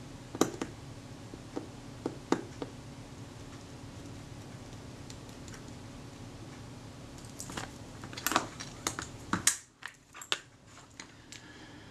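Small sharp clicks and taps of a tool and metal parts at a Kodak Retina IIIS camera's sprocket shaft, a few at first and a quicker run of them about three-quarters of the way in, over a steady low hum that cuts off abruptly near the end.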